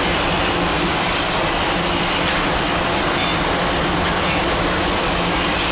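Polishing machine working the welded corner of a stainless steel work table: a loud, steady grinding noise with a low hum underneath.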